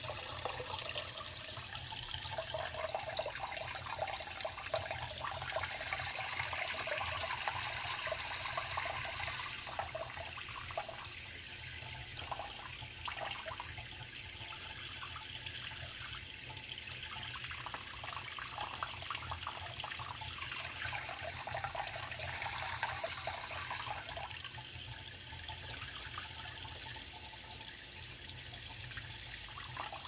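A creek flowing: a steady babble of running water that swells and eases a little.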